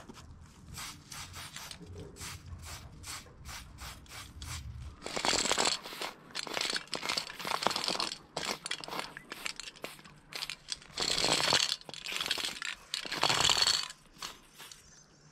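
Aerosol spray paint cans hissing in bursts of about a second, five or so times, starting about five seconds in. Before that comes a run of short crunching clicks.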